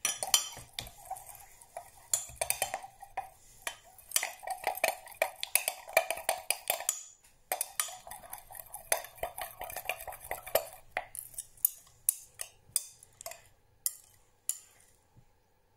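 Wooden stirring stick scraping and clinking against the sides of a Pyrex glass measuring jug while stirring green colourant into liquid soft-plastic lure mix. A fast, continuous run of scrapes and knocks thins out to a few separate clinks after about eleven seconds and stops near the end.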